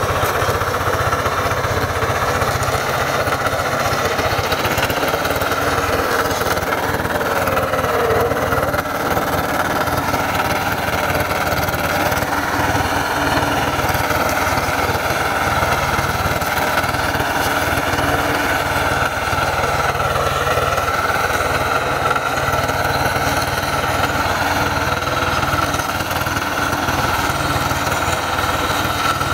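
Single-cylinder diesel engine of a Quick Kronos two-wheel hand tractor running steadily as it drives the rotary tiller through soil.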